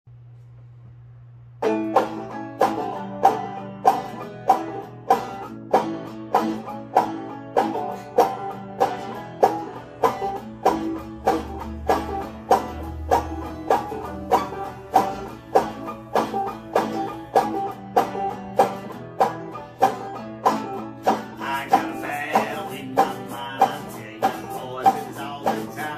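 Banjo and hollow-body electric guitar playing together at a steady beat, starting about a second and a half in after a low steady hum. A higher part joins in about three quarters of the way through.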